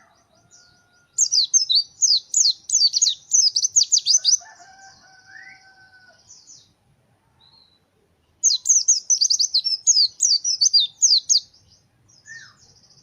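White-eye (pleci) singing: two bouts of rapid, high-pitched sweeping notes with a pause between, the first running into a fast buzzy trill.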